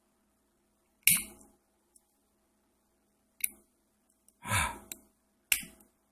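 Sharp metallic clicks of a lock pick and tension tool working the pin stacks of a lock cylinder during single-pin picking: single clicks about a second in and midway, and a longer rattling click shortly before a last one near the end.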